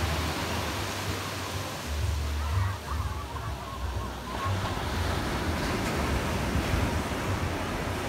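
Ocean surf breaking and washing up a sandy beach, a steady rushing wash, with wind gusting on the microphone in low rumbles.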